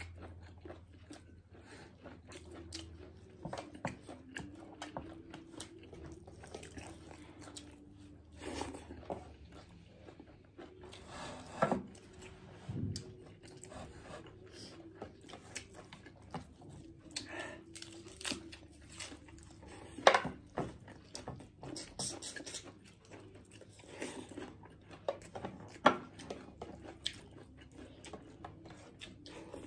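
Close chewing and lip-smacking of people eating mutton curry and rice by hand, with many short wet clicks and crunches. The sharpest smacks come about 12, 20 and 26 seconds in.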